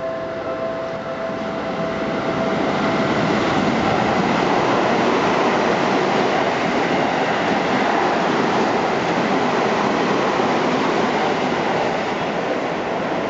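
Seibu 20000 series ten-car electric express train passing through a station at speed, with wheels clattering on the rails. The rush of noise builds over the first few seconds, holds loud while the cars go by, and eases near the end as the last car passes; a steady tone fades out in the first few seconds.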